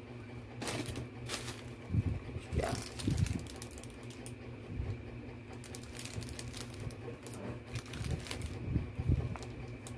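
Plastic bubble wrap crinkling and rustling while a ring light's gooseneck arm and cables are handled, with scattered light clicks and taps. A steady low hum runs underneath.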